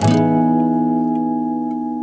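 Background music: a plucked-string chord struck once at the start and left ringing, fading slowly.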